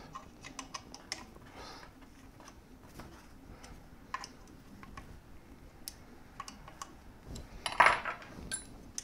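Scattered light metallic clicks and taps of a hex key on the frame bolts and aluminium extrusion of a 3D printer as the bolts are tightened, with one louder short clatter near the end.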